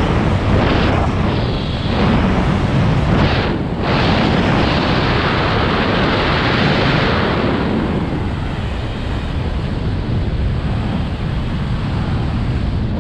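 Loud wind buffeting the microphone during fast speedflying flight: a continuous rushing noise with brief dips, its hiss easing a little after the midpoint.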